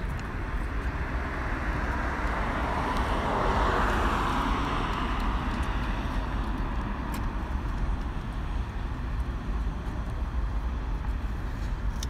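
Outdoor traffic noise: a passing vehicle swells to a peak about four seconds in and fades away, over a steady low rumble.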